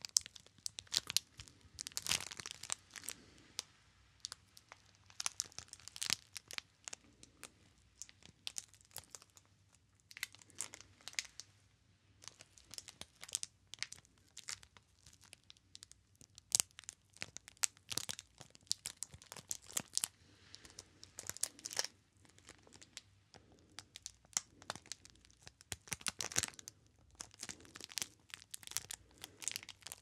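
Crinkly plastic wrapping on a translucent bar of soap, squeezed and rubbed between the fingers close to the microphone: irregular crackling in bunches, with a few short quieter pauses.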